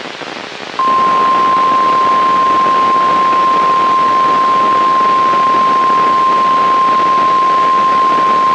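NOAA Weather Radio's steady single-pitch warning alarm tone, about 1050 Hz, over radio static hiss. The tone starts about a second in and holds without a break. It is the alert tone that comes before a warning message.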